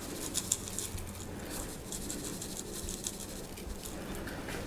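Seasoning of salt, black pepper and garlic sprinkled onto raw chicken breasts on a rack, the granules falling in a faint, scattered patter.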